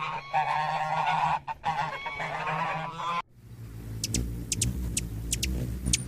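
Waterfowl calling: about three seconds of nasal, honking calls. After a sudden cut, a small bird gives a string of short, high chirps over a low rumble.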